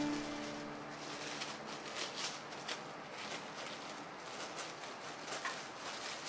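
Plastic cling film crinkling in short, irregular crackles as hands press and peel it off a portion of rice. Background music ends about a second in.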